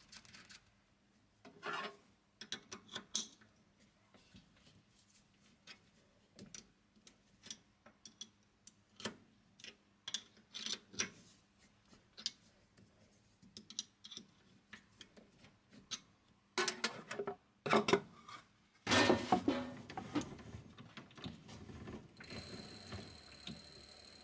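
Scattered small metal clicks and taps as a lathe chuck is seated on the spindle and its mounting nuts are tightened with a wrench, with a louder clatter about 17 to 20 seconds in. Near the end the mini lathe's motor starts, a steady high whine over a low hum, as the spindle turns slowly.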